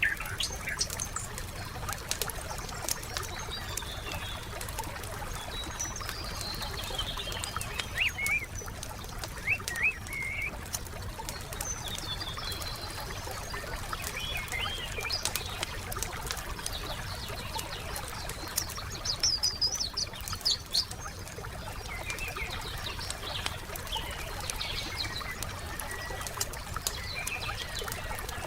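Wood fire crackling with frequent sharp pops, a few louder pops standing out, while several birds chirp and sing short whistled phrases, some falling in pitch.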